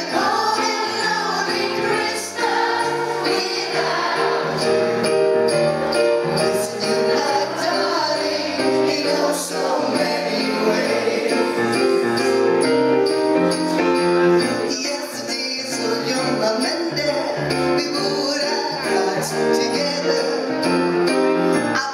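A woman singing a Christmas pop song live into a microphone, backed by a concert wind band playing sustained chords.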